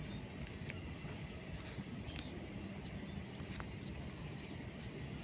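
Quiet outdoor background: a steady high-pitched insect drone over an even low noise, with a few faint ticks and rustles.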